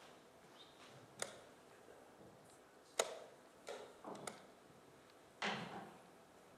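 Wooden chess pieces set down on a board and chess clock buttons pressed during fast blitz play: a handful of sharp clicks and knocks, the loudest about three seconds in, and a longer, scuffing knock a little past five seconds.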